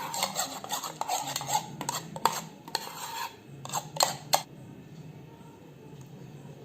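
Spoon scraping and stirring in a bowl with a few sharp clinks, mixing white glue and sanitizer with borax solution as it thickens into slime. The stirring stops about four and a half seconds in.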